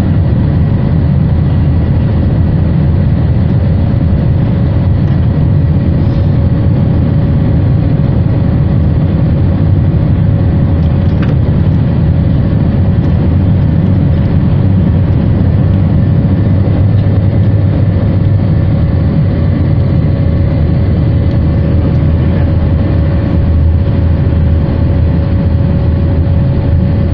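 Airbus A321-231's IAE V2500 turbofan engines and slipstream heard inside the cabin during the climb after takeoff. A steady, loud roar with a steady hum running through it.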